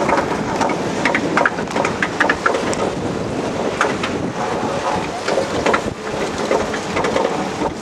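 Wind buffeting the microphone over the rattle of a Mack bobsled roller coaster car in motion, with frequent sharp clicks and knocks.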